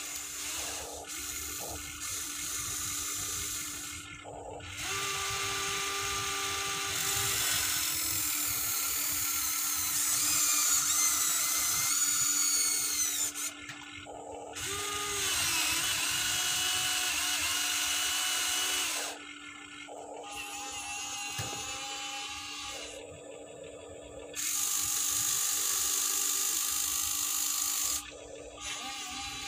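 Huina 1593 RC excavator's small electric motors and gearboxes whining in stretches of a few seconds that start and stop as the boom, arm and tracks are worked, the pitch sliding up and down at times.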